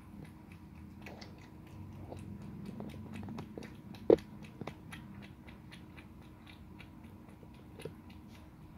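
Cat eating wet food from a bowl: a run of small, quick chewing and mouth clicks, with one much louder sharp click about four seconds in.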